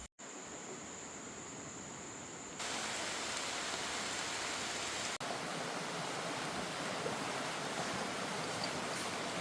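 A river's rushing water as a steady, even hiss, heard in short cut-together clips that get louder about two and a half seconds in.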